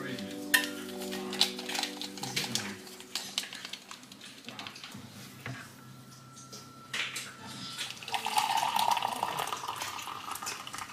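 Dishes and cutlery clinking and knocking together in a series of short sharp clicks, as background music fades out over the first few seconds.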